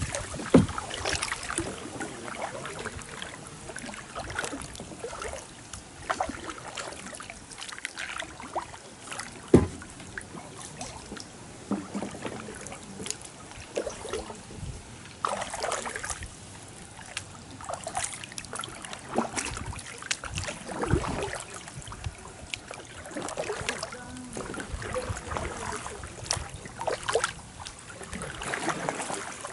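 Kayak paddle strokes: the blades dip and splash in the water at irregular intervals, with water dripping off them. Two sharp knocks stand out, the first about half a second in and the second, the loudest, near ten seconds.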